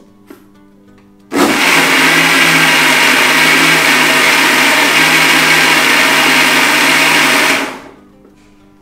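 Electric mixer grinder grinding soaked raw rice with a little water into batter. The motor switches on suddenly about a second in, runs steadily and loudly for about six seconds, then spins down near the end.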